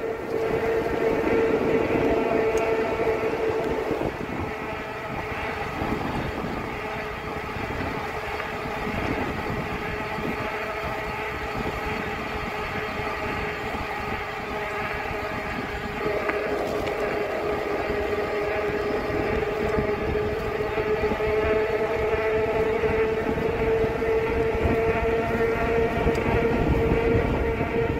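RadRover 6 Plus fat-tire e-bike riding along pavement: a steady pitched hum from its drive and tyres, over wind rushing across the microphone. The hum fades somewhat about four seconds in and comes back strong about halfway through.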